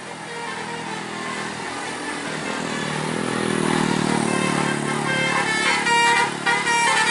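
A tour bus drawing closer, its engine growing louder, then its telolet basuri musical horn starts about five seconds in, playing a quick run of short notes.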